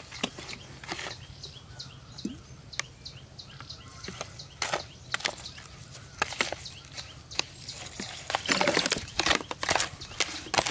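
Metal spoon stirring a wet chopped chili mixture in a plastic bowl: scattered clicks and scrapes as it knocks against the bowl, with a dense flurry of scraping about eight and a half seconds in.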